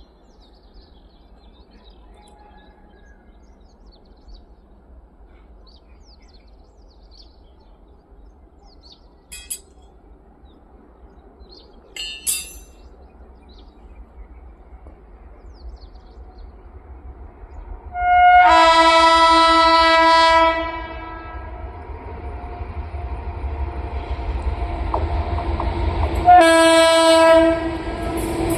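A train approaching, sounding its horn twice. First comes a long blast of about two and a half seconds, then a shorter one, while the rumble of the train grows steadily louder. Before that there is quiet with a few faint chirps.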